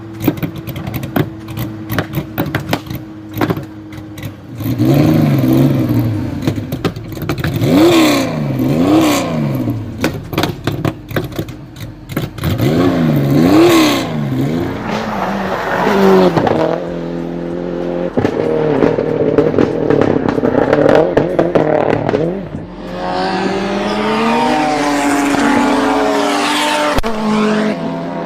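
Car engine and exhaust: at first running steadily with a rapid crackle of exhaust pops. From about five seconds in it is revved up and down over and over, with pops between the blips. Near the end it holds steady revs and then pulls up in pitch as it accelerates.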